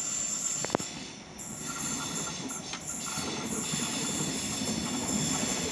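High-speed electric train approaching the platform, a steady rumble of wheels on rails with a thin high whine over it. A sharp click sounds a little under a second in.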